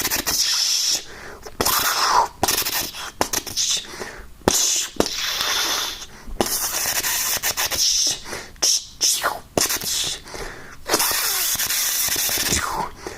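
A person imitating lightsaber sound effects with his mouth: a string of hissing, spitting bursts broken by sharp clicks and a few sliding whooshes, with short pauses between them.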